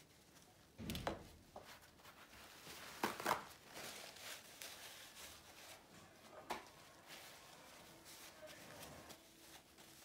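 Quiet handling noises of art supplies at a work table: a dull thump about a second in, two sharp taps just after three seconds, and a lighter tap near six and a half seconds.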